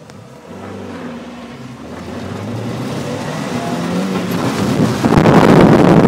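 Mazda Miata's four-cylinder engine accelerating hard from a standstill, its pitch climbing, heard from inside the car. About five seconds in, a loud rush of tires throwing water off the soaked pavement takes over.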